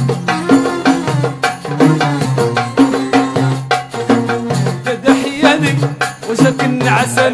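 Moroccan song with a steady hand-percussion and rattle beat over a repeating bass line; a wavering melodic line enters about five seconds in.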